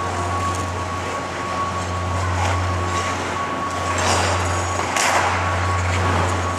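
Steady low hum of ice rink machinery with a thin steady whine above it, and scraping hisses from ice skate blades on the ice about four and five seconds in.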